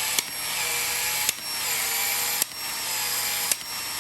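Battery-powered PEX expansion tool running through repeated expansion strokes on the end of a PEX pipe. The motor note sags in pitch during each stroke, and a sharp click marks each cycle about once a second as the head opens the pipe end to take a fitting.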